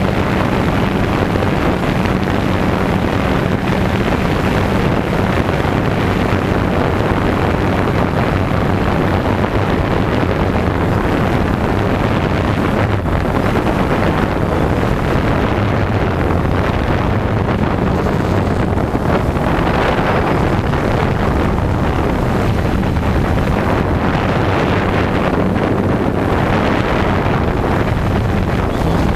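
DJI Phantom 2 quadcopter's four electric motors and propellers running steadily in flight, heard from on board: a loud, even whirring hum with wind rushing over the microphone.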